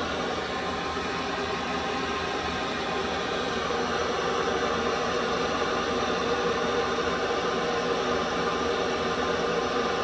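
Heat pump's indoor blower pushing air in heat mode with the auxiliary heat strips on: a steady rush of air with a faint hum.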